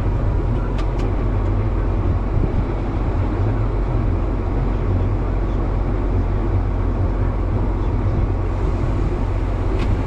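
Tractor engine running steadily under load, heard from inside the cab, as it powers a grain cart's unloading auger pouring shelled corn into a semi trailer.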